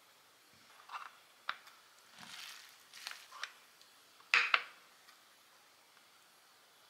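Silicone spatula scraping and tapping rice into a plastic triangle-kimbap mould, with a few light clicks and one longer scrape. About four and a half seconds in come two sharp plastic clicks, the loudest sounds, as the mould's lid is put on and pressed down.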